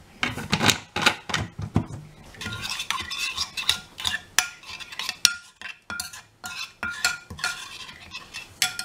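Metal spoon stirring a thin stir-fry sauce in a ceramic bowl, with quick irregular clinks and scrapes against the bowl's sides and bottom; many clinks leave the bowl ringing briefly.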